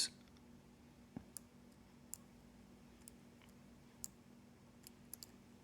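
Faint, irregular metallic clicks, about nine of them, from a dimple pick probing the pins of a Sargent Keso 12-pin dimple lock while it is being picked.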